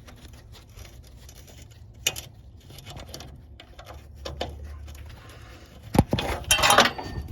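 Hand tools working on metal fittings: scattered light clicks, a sharp knock about six seconds in, then a brief burst of scraping and rattling.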